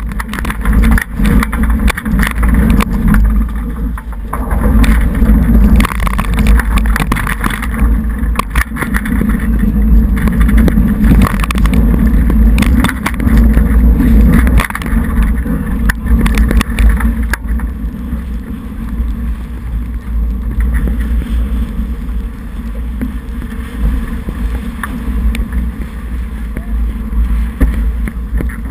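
Wind rumbling on the camera microphone and water rushing past the hull of a J80 sailboat sailing hard in a 14–16 knot breeze, with many short knocks throughout.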